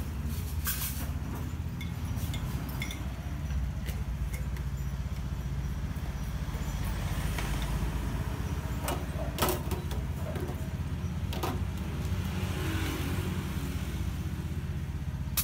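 Steady low rumble of passing road traffic, with a few sharp clinks of stainless steel coffee pots and filter handles being handled.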